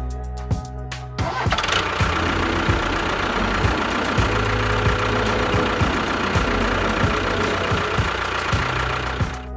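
Engine running with a steady, rough knocking beat, about three knocks a second, starting about a second in after a short stretch of music.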